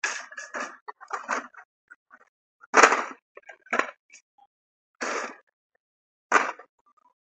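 Metal shopping cart rattling and clattering in short, irregular bursts as it is pushed, the loudest clatter a little under three seconds in.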